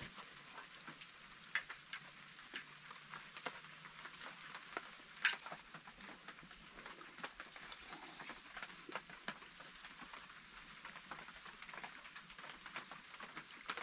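Steady hiss of rain with many scattered sharp clicks and ticks over it; the two loudest come about a second and a half in and about five seconds in.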